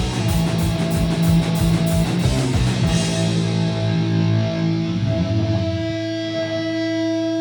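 Live punk hardcore band playing with distorted electric guitars and drums, pounding steadily through the first few seconds, then the drums stop and a held guitar chord rings on as the song ends.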